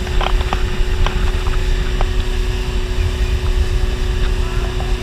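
Mercury outboard motor running steadily at speed while towing a water skier, with a steady drone and a dense low rumble of wind and wake noise on the microphone. A few short ticks come in the first two seconds.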